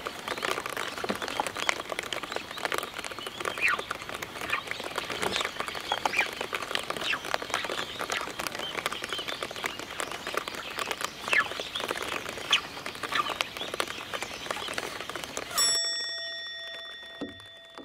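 Light rain pattering on a pond surface in many small, quick ticks, with short chirps through it. About sixteen seconds in the patter cuts off abruptly and a bell-like chime of a few steady tones rings, fading near the end.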